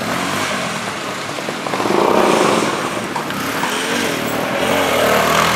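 Street traffic: motor vehicles running and passing by, rising a little about two seconds in.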